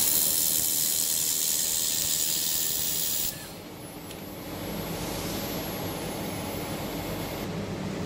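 Handheld fiber laser welder hissing steadily at its nozzle while welding 2 mm copper plate, stopping abruptly a little over three seconds in. Afterwards a quieter steady machine hum carries on.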